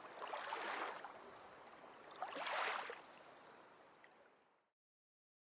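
Waves washing in: two swells of rushing water about two seconds apart, then the sound fades away a little over four and a half seconds in.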